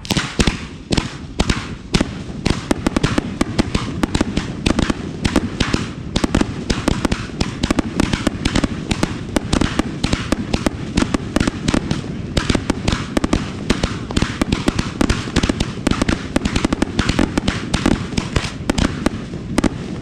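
Aerial fireworks display going off, a dense run of overlapping bangs and crackles, several a second, starting suddenly and keeping up without a pause.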